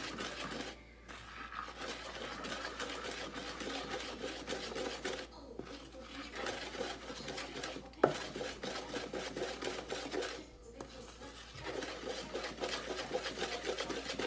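Wooden spoon stirring thick dough in a plastic mixing bowl as flour is worked into the wet mixture: quick, rhythmic scraping and rubbing with a few brief pauses. A single sharp knock about eight seconds in.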